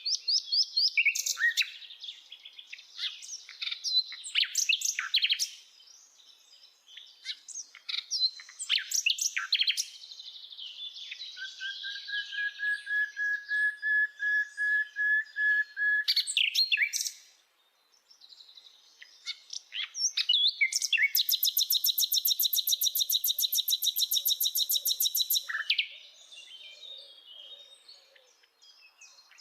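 Common nightingale singing: varied phrases of quick whistles and chirps, a run of evenly repeated lower notes in the middle, a brief pause, then a long, fast, even trill.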